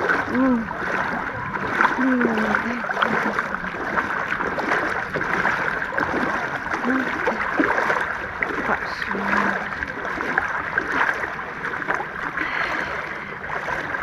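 Sea water sloshing and splashing close by: a steady run of small splashes, with faint voices in the background.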